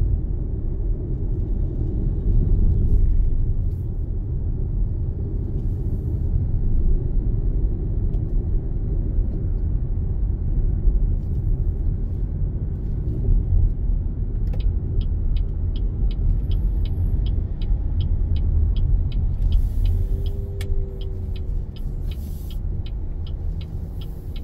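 Car road and engine rumble heard while driving in traffic. From a little past halfway a turn-signal indicator ticks steadily, a bit under three ticks a second.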